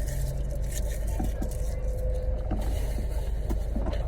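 Car engine idling with a steady low hum, with a few small clicks and rustles over it.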